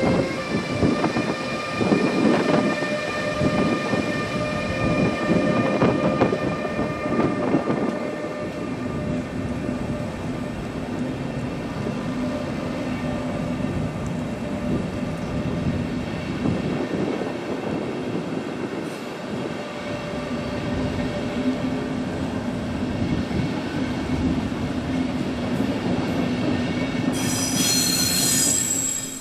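A Flixtrain passenger train, hauled by an electric locomotive, rolling past with a steady whine over wheel and rolling noise, loudest in the first several seconds. Near the end, a brief high-pitched tone cuts in.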